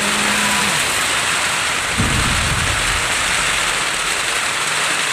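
Heavy rain pouring steadily, with a brief low rumble about two seconds in.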